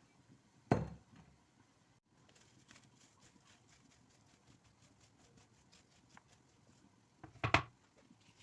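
Two solid knocks of something set down or struck in kitchen prep, about a second in and again near the end, with faint light tapping between them.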